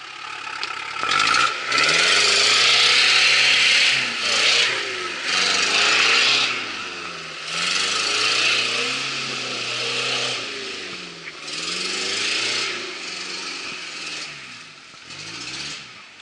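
An off-road 4x4's engine revving up and down several times as it drives through deep mud, under a loud hissing noise, dying away near the end.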